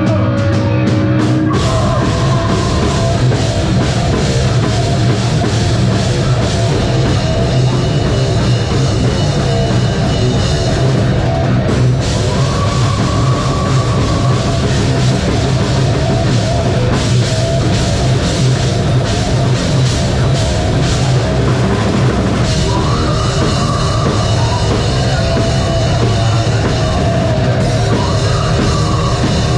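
Live heavy metal band playing loud and without a break: distorted guitars, bass and a pounding drum kit.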